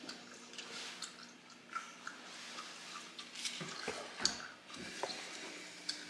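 Faint wet chewing and lip smacking of a gummy bear being eaten, with scattered small clicks.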